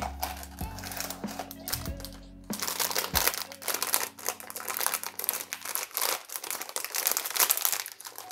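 Metallic foil blind-box bag crinkling and crackling rapidly as hands open it and pull out a vinyl figure, starting about two and a half seconds in.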